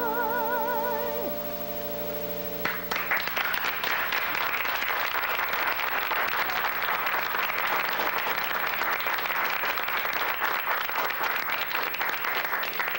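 A woman's voice holds a final sung note with vibrato over a sustained piano chord; the voice stops about a second in and the chord dies away soon after. About three seconds in, an audience breaks into steady applause.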